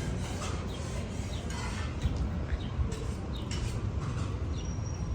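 Small birds chirping in short, scattered calls over a steady low rumble of street noise.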